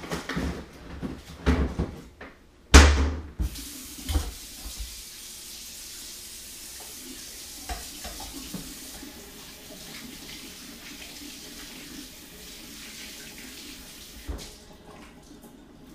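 A loud clunk about three seconds in and a few lighter knocks, then a kitchen faucet running water steadily for about ten seconds before it is shut off near the end.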